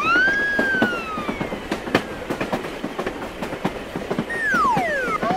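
Cartoon train sound effect: a steady run of small clicks like wheels over rail joints. At the start a whistle-like tone quickly rises and then slowly falls, and near the end another falls quickly.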